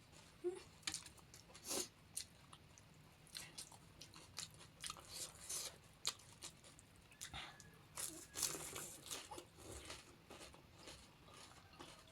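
Close-mic crunching and chewing of panipuri: crisp fried puri shells filled with spicy water, with chips and bhuja added, bitten and chewed in short irregular crackles.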